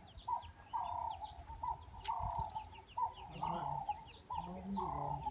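Birds calling: a run of short, repeated calls with quick high chirps scattered among them.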